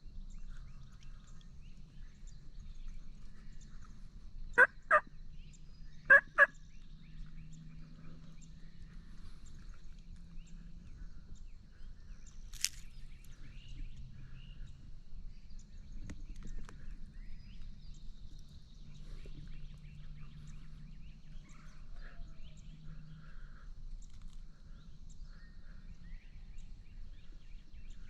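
Turkey calls: two quick pairs of short, sharp notes about a second and a half apart, standing out from a quiet woodland background. A single sharp click follows several seconds later.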